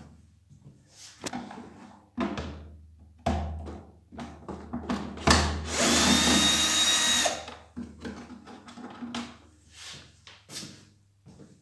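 A cordless drill-driver runs steadily with a high whine for about two seconds midway, driving out a screw from a pressure washer's plastic housing. Plastic knocks and clacks come before and after as the housing and tools are handled.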